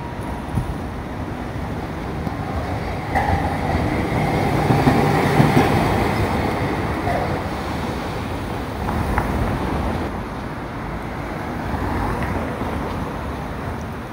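Hankai Tramway streetcar running past on street-level tracks: a motor hum and a light whine from the wheels swell to their loudest about five seconds in, then fade back under road traffic.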